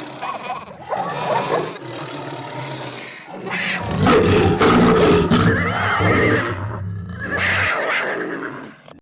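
Overlapping cartoon animal sound effects: a jumble of animal calls, joined a few seconds in by a louder, deep roar lasting about four seconds, fading out at the end.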